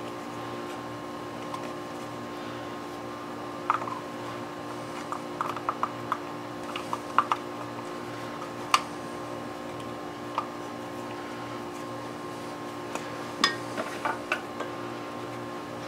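Scattered small metallic clicks and taps of saw parts and tools being handled on a workbench, over a steady background hum.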